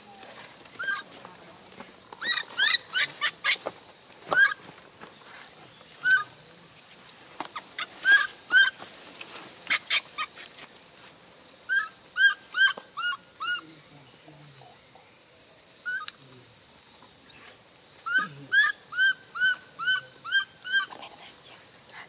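Baby monkey giving short, high, squeaky cries, some single and some in quick runs of five or six, over a steady high drone of insects.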